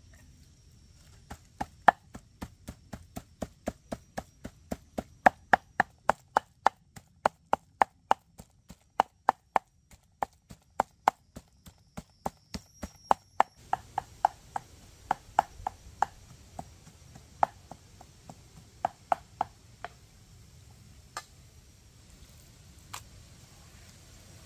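Knife chopping raw pork into mince on a wooden board: steady, even chops at about three a second that stop about 20 seconds in, followed by two single knocks near the end.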